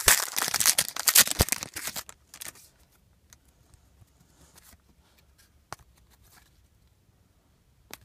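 A trading-card pack wrapper crinkles and tears open for about two seconds. After that come scattered faint clicks and slides of cards being handled.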